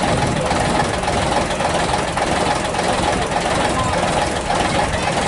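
Leyland double-decker bus's diesel engine idling steadily at a standstill, with people talking around it.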